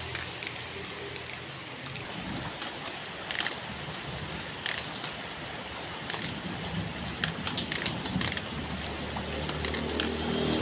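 Steady rain falling on a yard and potted plants, with scattered sharp drips and ticks of drops striking leaves and water close by. A low hum grows in near the end.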